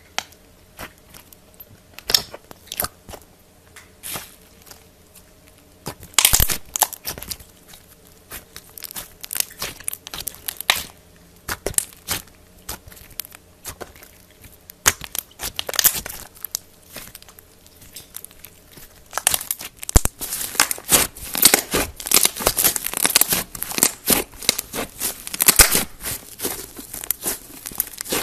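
Slime being poked, stretched and squeezed by hand: sticky crackling and small popping clicks as it pulls apart and air pockets burst. Scattered at first, dense and continuous for the last third.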